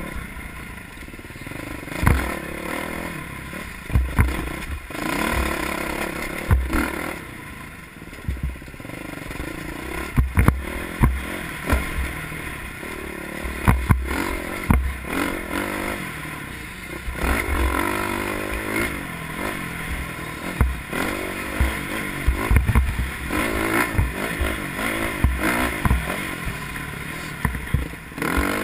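Dirt bike engine revving up and down as the bike is ridden hard over rough, rocky ground, with frequent sharp clattering knocks from the jolts of the terrain.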